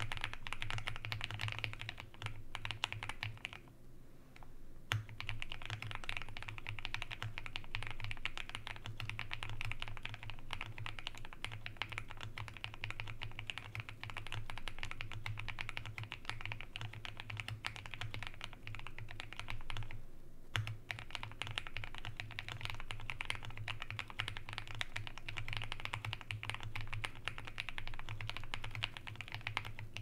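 Continuous fast typing on a Rama Thermal SEQ2 mechanical keyboard with lubed Glorious Lynx linear switches and PBT keycaps, tape-modded and foam-dampened: a dense, even stream of key clacks. It breaks off for about a second around four seconds in, and briefly again around twenty seconds in.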